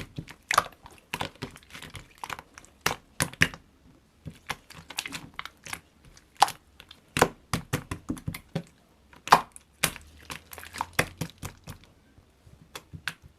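Slime being squished and pressed, giving irregular sharp clicks and pops with short quiet gaps between them.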